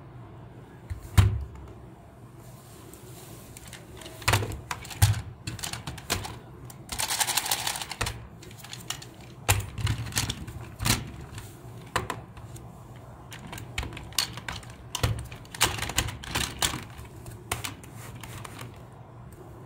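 Hard plastic clicking and knocking at irregular intervals as the boxer figures of a toy boxing-robot set are handled and fitted into the plastic base, with a brief rattle about seven seconds in.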